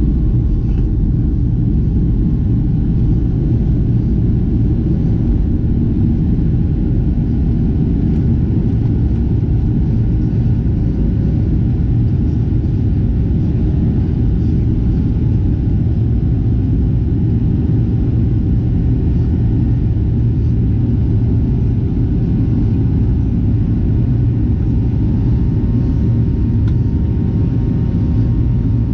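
Steady low rumble of a Boeing 737-700's engines and airflow heard from inside the passenger cabin, even throughout with a faint steady hum above it.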